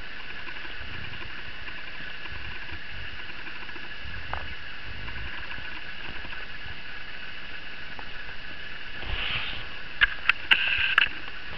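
A kitten scuffling and pawing in a woollen blanket: soft rustles and muffled thuds under a steady high-pitched electronic whine. Near the end come a few sharp clicks, the loudest sounds.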